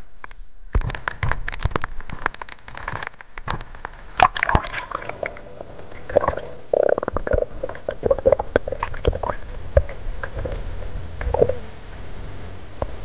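Underwater sound picked up by a camera dipped into the sea: muffled sloshing and rumbling with many irregular clicks and knocks, starting about a second in.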